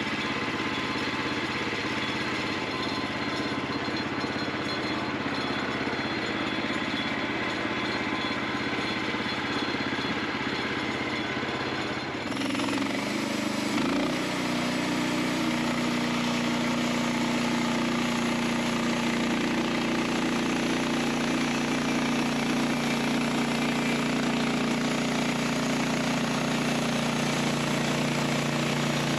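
Gasoline engine of a Norwood LumberMate portable bandsaw mill running steadily. About twelve seconds in the sound changes, and from then on the engine holds a steady, stronger tone while the band blade saws lengthwise through a poplar log.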